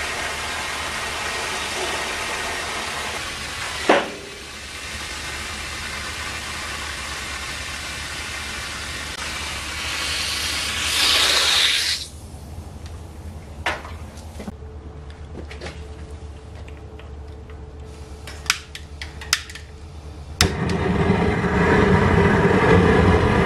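Water from a garden hose pouring into a galvanized metal tub, with a single knock about four seconds in, stopping abruptly about halfway. After a quieter stretch with a few sharp clicks, a propane burner under the tub lights and runs with a steady rushing roar near the end.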